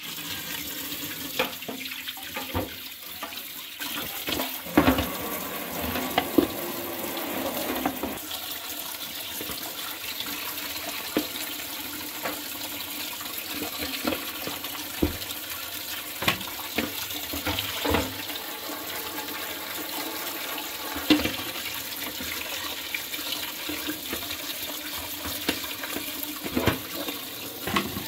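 Tap water running steadily onto a plucked duck and a perforated metal strainer in a stainless steel sink, with scattered knocks and scrapes as the duck is handled and scraped with a knife.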